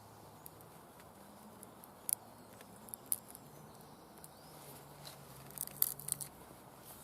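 Dry hazel stick being split by hand: faint, scattered crackles and clicks as the wood fibres part, with a cluster of sharper cracks near the end. The wood is resisting the split.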